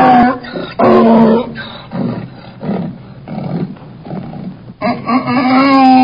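Donkey braying: loud pitched hee-haw calls at the start, weaker rasping breaths and calls in the middle, and a loud drawn-out call again near the end.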